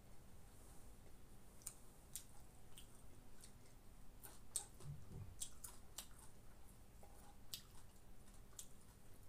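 Faint, scattered light clicks of a spoon and fingers against plates, with soft chewing, as a meal is eaten by hand and spoon.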